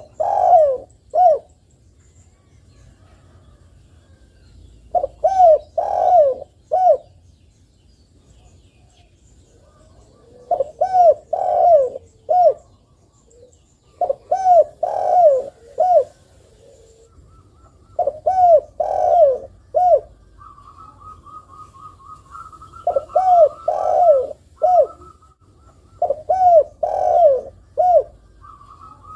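Spotted dove cooing: about six phrases of three to five rising-and-falling coos, one phrase every three to five seconds, with a short separate final note ending most phrases.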